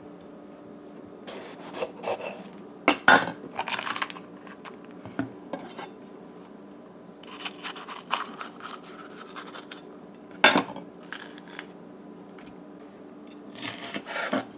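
Chef's knife cutting up a red bell pepper on a wooden cutting board: short scrapes and knocks of the blade on the board in several bouts with pauses between, the sharpest knock about two-thirds through.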